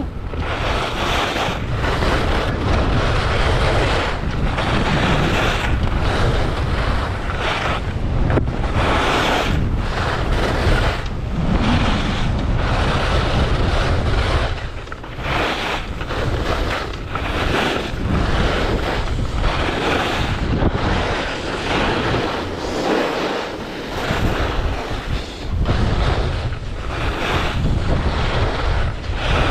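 Wind blasting the GoPro's microphone during a downhill ski run, mixed with the hiss and scrape of skis on snow, surging and easing every second or two.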